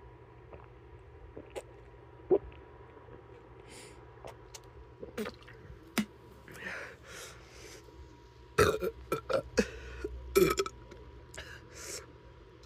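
A person burping: several loud burps in quick succession about two-thirds of the way in, with a couple more shortly after, preceded by quieter clicks and mouth sounds.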